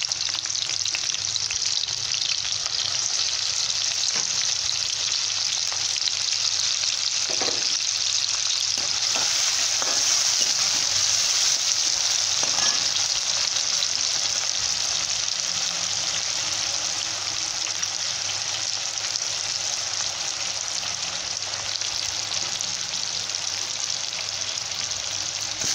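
Finely chopped onion frying in hot oil with cumin seeds in a pan: a steady, fairly loud sizzle. A metal spatula stirs it now and then.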